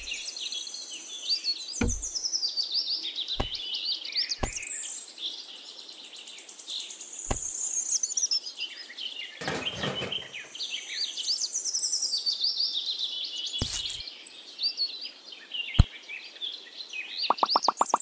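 Small birds chirping and twittering continuously, with scattered light knocks and one sharp click as clay model pieces are handled and set down. Near the end a fast run of rapid pulses starts.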